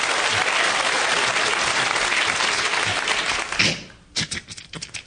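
Studio audience applauding, the applause dying away about three and a half seconds in; a few short sharp clicks and knocks follow.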